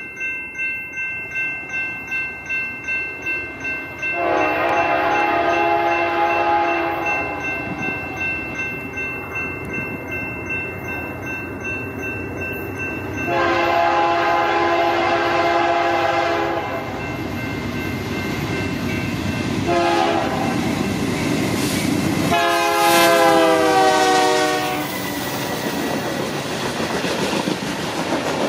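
A bell clanging about two to three times a second, then a BNSF freight locomotive's multi-note air horn sounding long, long, short, long, the grade-crossing signal, as the train approaches. The last blast drops in pitch as the locomotive passes, and the steady rumble of the passing train follows.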